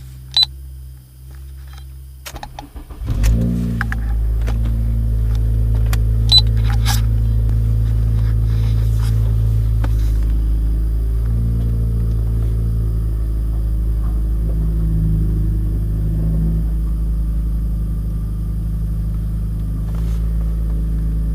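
A car engine is cranked and catches about three seconds in, then settles into a steady idle. A sharp click comes just before the cranking.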